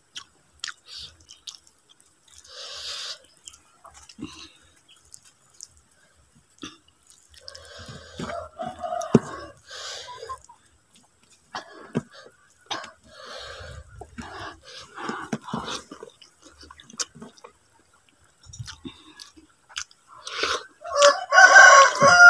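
Close chewing and mouth clicks of someone eating rice and vegetables by hand, with chickens heard now and then. Near the end a rooster crows loudly.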